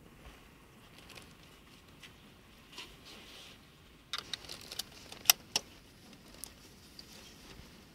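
Car seat belt being threaded through a child car seat's belt guides: webbing rustling, with the metal latch plate clinking and clicking against the seat's plastic. A cluster of sharp clicks comes about four to six seconds in, the loudest just past five seconds.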